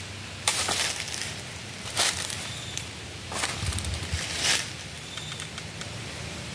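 Footsteps crunching and rustling through a thick litter of dry bamboo leaves and cut bamboo stems, four steps about a second apart.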